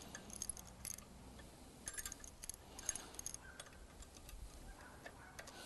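Faint metallic clicks and clinks in small scattered clusters as the steel line-up clamp's pivot arm is loosened and adjusted by hand.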